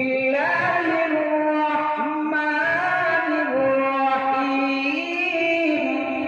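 A man's voice reciting the Quran in the melodic qirat style through a microphone, one long unbroken phrase of drawn-out notes that rise and fall, easing off near the end.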